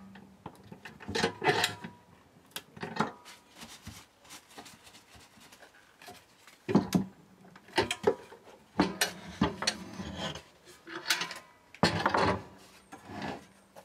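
Bar clamps being handled and tightened on a glued wooden tray frame: scattered knocks, clicks and rubbing of wood and metal clamp parts, with short gaps between them.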